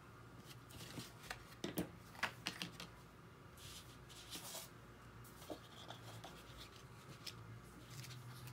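Paper and mat board handled on a wooden desk: a quick run of light taps and clicks about two seconds in, then a soft rubbing slide of paper over board, with a few small clicks after.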